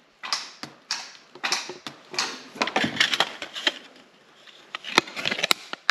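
Thin embossed stainless-steel heat-shield foil crinkling and rustling as it is handled, in a string of short crackles, with two sharp clicks near the end.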